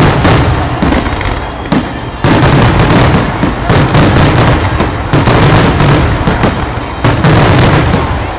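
Aerial firework shells bursting in rapid succession during a grand finale: a loud, near-continuous barrage of booms with barely a gap between reports.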